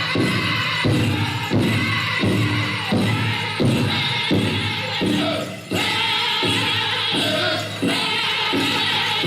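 Group of male voices singing together over a steady beat, about one pulse every three-quarters of a second.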